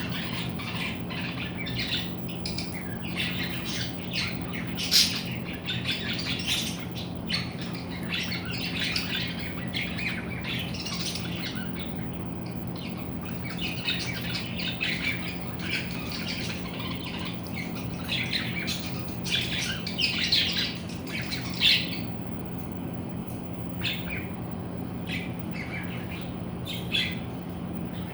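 Birds squawking and chirping: many short, high calls in quick succession, a few louder ones standing out, over a steady low hum.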